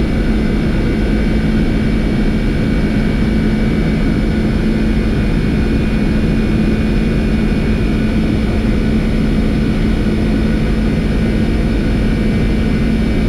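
Boeing 747-400 flight deck during the takeoff roll at takeoff thrust: steady engine and rolling noise from its four turbofans, with a constant low hum underneath.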